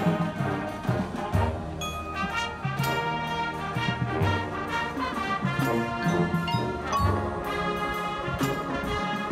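Marching band playing a brass-heavy passage of its field show: full brass chords with strong low brass notes, over drums and mallet percussion.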